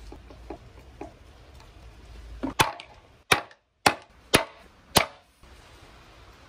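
Mallet striking a metal punch held on silicone pot stands over a wooden board: five sharp knocks about half a second apart, punching bolt holes through the silicone.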